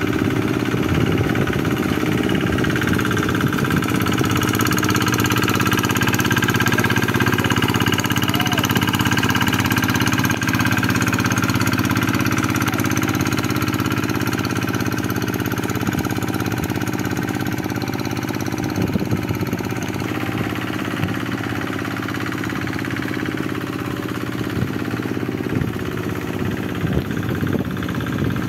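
Two-wheel hand tractor's single-cylinder diesel engine running steadily while the machine works its cage wheels through flooded paddy mud.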